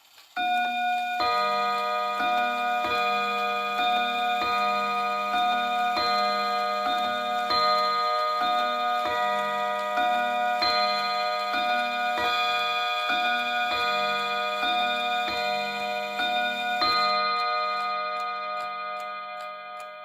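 Hermle mantel clock's bim-bam strike on chime rods: a long series of alternating two-note strikes, about one every three-quarters of a second. The strikes stop near the end and the rods ring on, fading.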